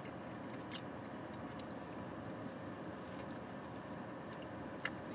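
Steady low hum of a car cabin, with a few faint clicks from someone chewing a sandwich.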